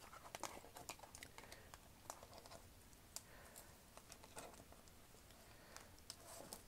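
Faint, irregular clicks and soft slides of oracle cards being gathered up and stacked on a tabletop by hand.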